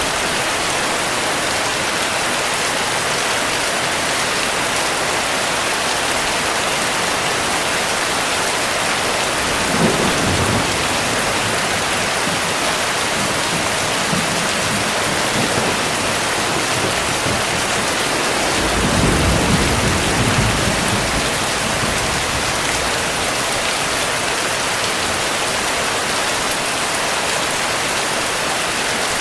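Heavy rain falling steadily, with low rolls of thunder rumbling twice: a short one about a third of the way in and a longer one a little past the middle.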